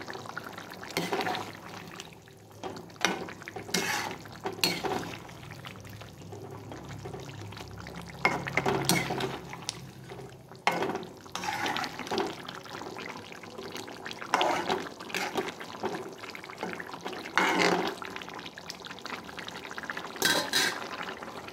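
A spatula stirring and scooping fish curry in a metal kadai: wet slopping of the thick gravy and scrapes against the pan, in irregular strokes.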